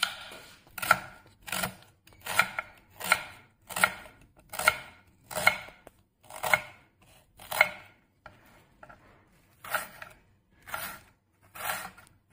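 Kitchen knife slicing a red onion finely on a wooden cutting board. Each cut ends in a crisp tap on the board, about one a second, with a pause of about two seconds past the middle before the cutting resumes.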